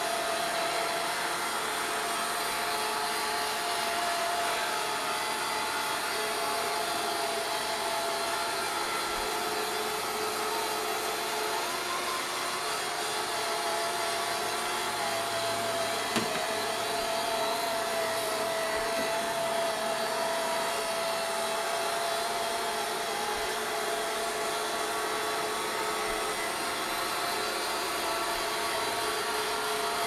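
Home Hero robot vacuum cleaner running as it moves over carpet: a steady motor whir with a steady mid-pitched whine, and one short knock about halfway through.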